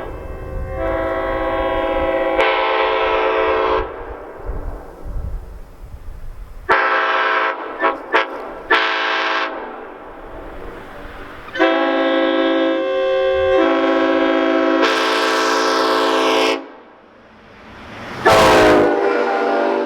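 Train-style air horns sounding a series of long chord blasts, about four with short gaps between them; the last, shorter blast bends in pitch.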